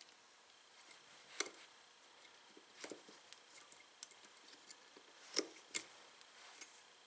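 Pliers clicking and tapping against a steel cotter pin as it is worked out of the axle nut: scattered small clicks, with louder ones about a second and a half in and twice around five and a half seconds.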